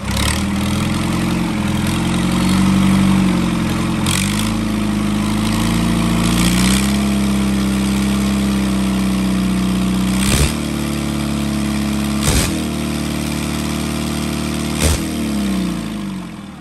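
Isuzu 4BD1 four-cylinder non-turbo diesel engine running on a test run, revved up and down a few times. Three sharp clacks come in the second half. Near the end the engine winds down and stops.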